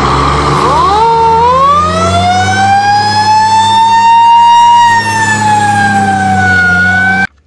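Fire engine siren sounding one long wail that rises slowly in pitch, peaks about two-thirds of the way through, then eases down a little before cutting off suddenly near the end, over a steady low rumble.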